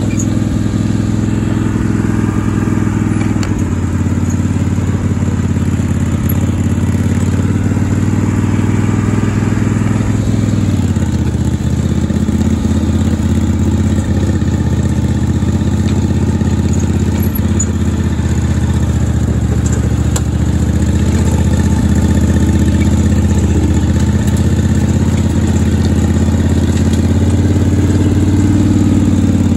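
Lifted lawn tractor's engine running steadily under way on a dirt trail. Its pitch drops a little about ten seconds in and rises briefly near the end.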